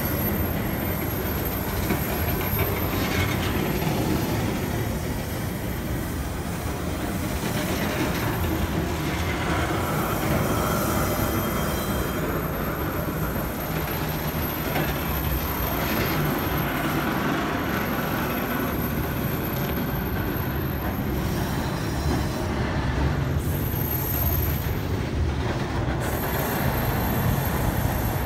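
Container freight train's wagons rolling past at close range: steady wheel-on-rail noise that goes on without a break.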